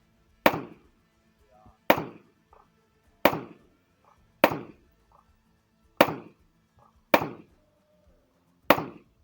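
Rifle shots fired in a steady series, seven sharp cracks about every second and a half, each with a short fading echo.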